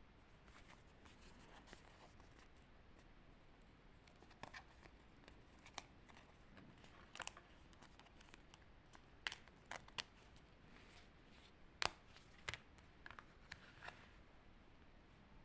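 Faint paper handling: a dozen or so short, irregular clicks and rustles of paper pieces and sticker sheets being moved and tapped.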